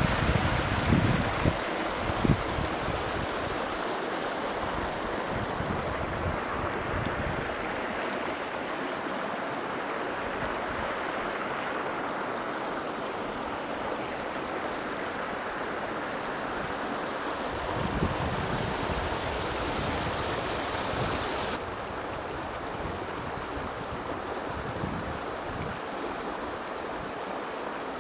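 Mountain river rushing over rocks, a steady rush of water that turns slightly duller about three-quarters of the way through. A few low wind buffets hit the microphone.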